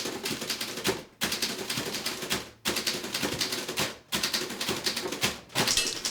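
Several typewriters being typed at once: a dense clatter of keystrokes, broken off briefly several times.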